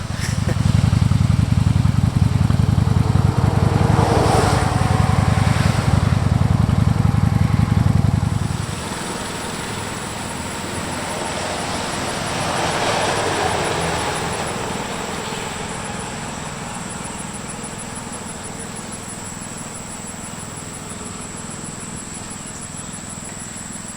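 Motorcycle engine running close by, loud with an even low pulse, for about eight seconds, then dropping away to a quieter steady running noise with a faint high whine.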